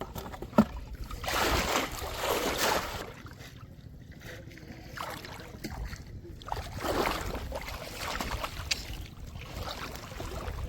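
Shallow river water sloshing and swishing in several swells, as if someone is wading or moving things through it, with a single short click about half a second in.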